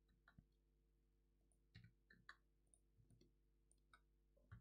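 Near silence: faint computer mouse clicks and key taps, scattered and irregular, over a low steady hum.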